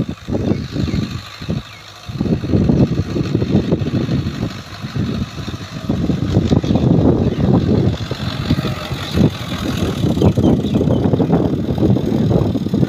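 Fiat 640 tractor's four-cylinder diesel engine running as the tractor drives across a field, loud and uneven, with a brief drop in level about two seconds in.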